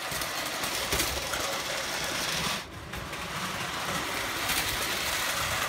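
Prewar Lionel O gauge tinplate toy train running on three-rail metal track: a steady whirring rattle of its mechanism and wheels, dipping briefly a little before the middle.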